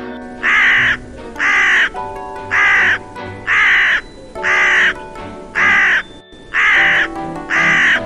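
Crow cawing: eight loud, harsh caws about one a second, over background music.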